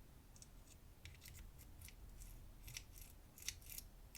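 Faint, scattered small metallic ticks and light scraping as a greased padlock core and its pins are handled during gutting.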